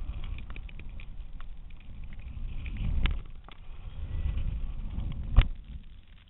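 Wind buffeting a GoPro camera in its housing, mounted on a kite in flight: a surging low rumble, with sharp knocks about three seconds in and a louder one near the end.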